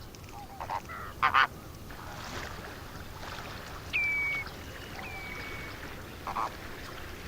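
Greater flamingos calling with short goose-like honks, mixed with three whistled bird calls that each drop quickly and then hold one note.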